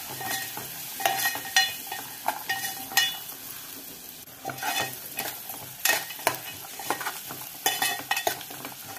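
A metal spoon stirring and scraping around an aluminium pot, clinking against its sides, over the steady sizzle of onions and dried mutton pieces frying in oil.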